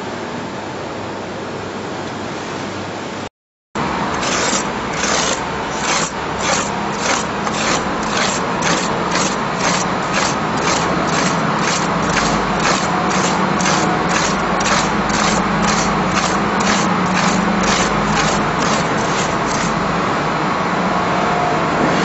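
Repeated scraping strokes in dry refractory ramming mix, about two a second, over a steady workshop hum. They begin after a brief dropout about four seconds in and stop a couple of seconds before the end.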